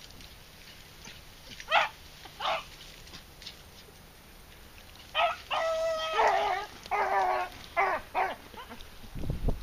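Beagles baying as they run a rabbit: two short yelps about two seconds in, then a run of high, drawn-out bays from about five to eight seconds. Wind rumbles on the microphone near the end.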